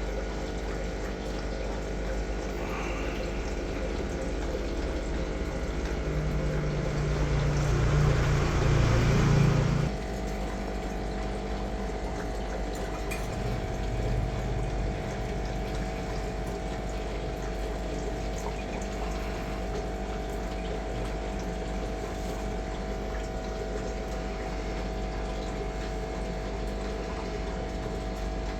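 A machine hum running steadily, with a louder surge from about six to ten seconds in that cuts off sharply, and a brief smaller rise near fourteen seconds.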